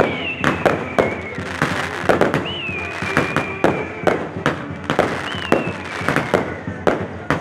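Castillo fireworks going off: sharp bangs and crackles in an irregular run, a few a second. Over them a high whistle sounds three times, each sliding slowly down in pitch over a second or two.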